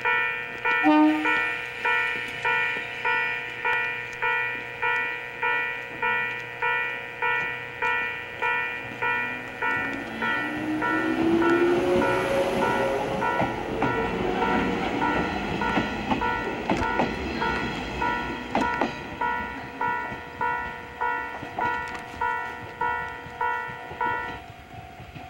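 Railway level-crossing alarm ringing steadily at about one strike a second, and stopping near the end. In the middle an electric train moves off on the rails, with a rising motor whine, wheel and rail noise, and a few sharp clacks.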